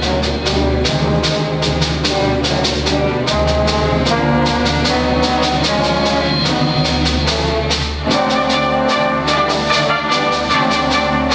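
Student orchestra playing a film theme, with sustained brass and string lines over regular percussion strikes. The music moves into a new, fuller section about eight seconds in.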